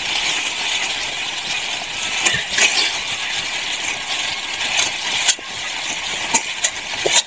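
Fishing boat's engine running steadily while the boat is under way, with a few light clicks on top.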